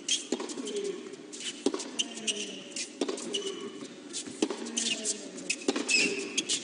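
Tennis rally on a hard court: the racket strikes the ball about every 1.3 seconds, with the ball bouncing in between and shoes giving short high squeaks on the court surface.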